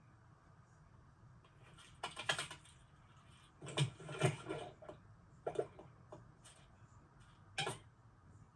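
Film sound effects: four short bursts of clattering, tapping clicks over a low background hum, the loudest two near the middle.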